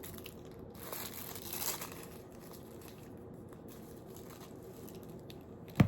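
Packaging of a pizza accessory kit (cutter, napkin, gloves) being handled, with faint rustling and a few small clicks in the first two seconds. A single sharp thump near the end is the loudest sound.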